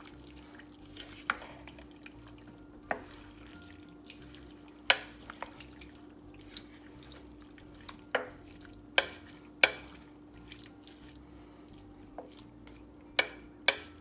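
A spoon stirring chili in a slow cooker's crock, knocking sharply against the sides about nine times at irregular intervals, over a steady low hum.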